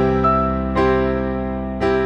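Background music: soft keyboard chords held and changing about every second.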